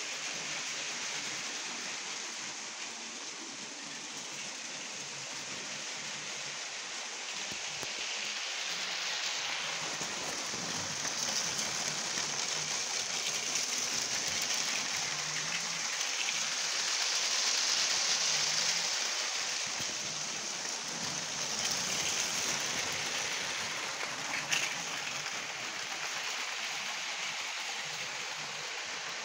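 Lego trains running on plastic track: a steady rattling whir of the small motors and wheels, swelling louder about halfway through, with one sharp click near the end.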